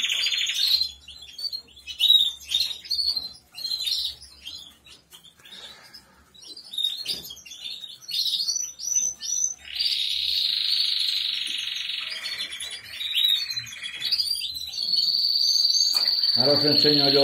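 Canaries singing in an aviary: a run of short chirps and notes, then long rolling trills held for several seconds, about ten seconds in and again near the end.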